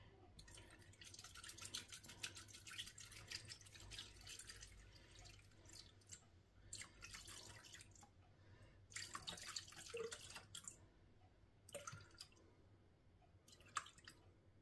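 Milk poured from a carton into a Thermomix's stainless steel mixing bowl: a faint splashing trickle. It runs on for the first few seconds, then comes in separate short spurts with pauses between.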